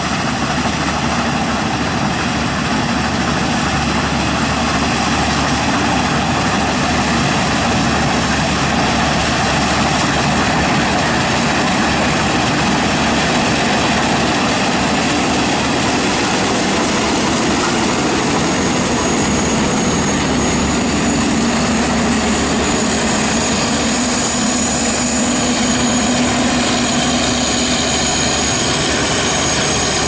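4YL-5 combine harvester running under load while cutting and threshing sorghum: a steady, loud drone of its 160-horsepower Yuchai diesel engine and threshing machinery. A thin high whine joins about two-thirds of the way through.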